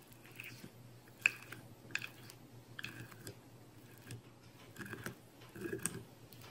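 Silicone spatula spreading sticky peanut butter into the grooves of a silicone lick mat: faint wet smacks and scrapes, a handful spread over several seconds.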